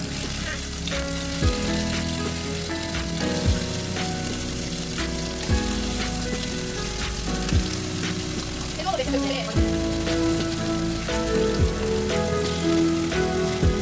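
Food sizzling steadily as it fries in a pan, under background music with a low thump about every two seconds.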